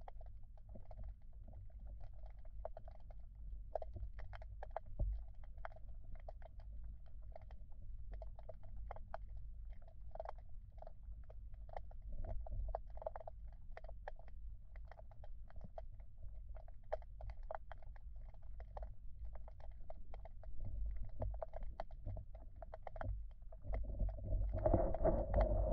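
River water heard through a submerged camera: a muffled low rumble of current with many scattered small clicks and ticks, growing louder near the end.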